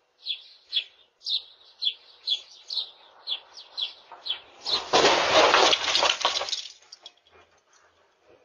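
A small bird chirping over and over, two to three short chirps a second. About five seconds in, a loud crunch of a car collision lasts about two seconds and then fades away.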